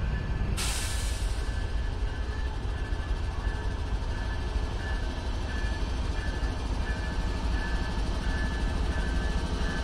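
Diesel-electric freight locomotive running as it pulls a train slowly past, a steady low rumble. A sharp hiss starts about half a second in and fades within a second or so, and a high tone rings in short repeated dashes.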